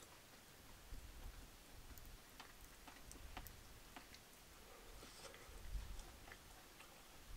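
Faint, scattered clicks of wooden chopsticks against a split bamboo tube, with quiet chewing.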